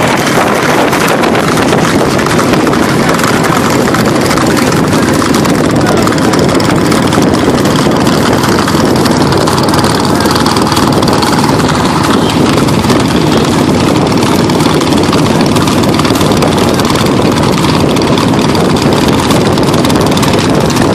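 A motor vehicle's engine running steadily while it travels, under a loud, even rushing noise.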